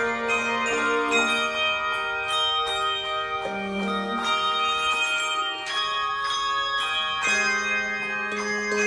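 Handbell choir playing a piece: several bells struck together in chords that ring on and overlap, with new chords sounding every second or so.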